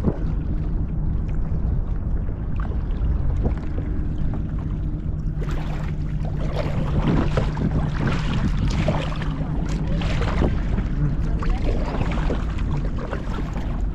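Water splashing and dripping around a kayak as a paddle dips, in quick irregular splashes through the second half. Underneath runs a steady low hum and wind noise on the microphone.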